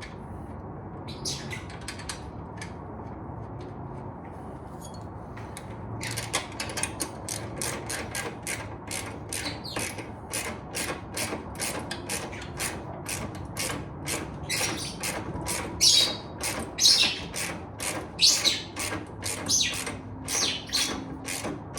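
Birds squawking over and over in short, sharp calls, about two or three a second. The calls start about six seconds in and grow louder in the second half, with a few light clicks before them.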